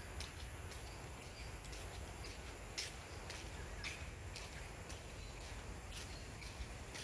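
Outdoor ambience: a steady low rumble with scattered short clicks throughout and a few faint, short, high chirps.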